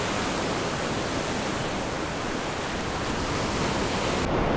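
Surf washing and breaking around a wading angler: a steady rushing noise. Near the end the high hiss drops out suddenly.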